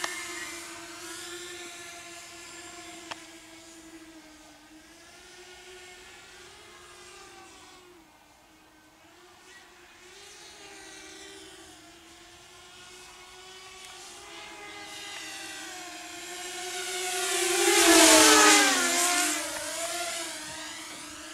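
Walkera Rodeo FPV racing quadcopter's motors and propellers whining in flight, the pitch wavering with the throttle. The whine fades as the quad goes off among the trees, then grows until it passes close by about three-quarters of the way through, where it is loudest, and its pitch drops as it goes past.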